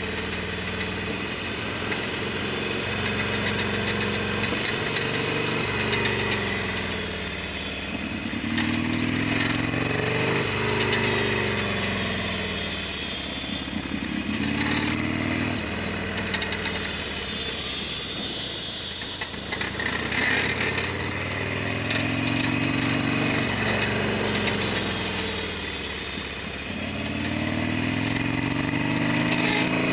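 Harley-Davidson XL1200R Sportster's V-twin engine under way, its pitch climbing and dropping several times as the rider accelerates, shifts and eases off.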